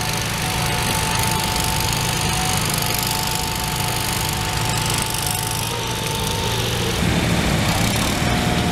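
A small garden tractor's engine running hard, with a steady high whine over it. About seven seconds in the sound shifts to a lower, heavier running as the whine drops away.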